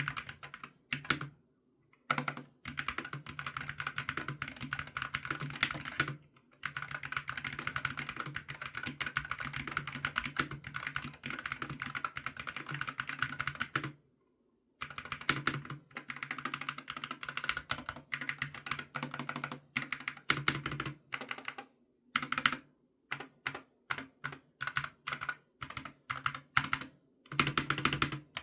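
Akko x MonsGeek FUN60 Max mechanical keyboard with magnetic switches being typed on fast, in long runs of rapid keystrokes broken by brief pauses. Toward the end the typing comes in shorter, separate bursts of a few keys at a time.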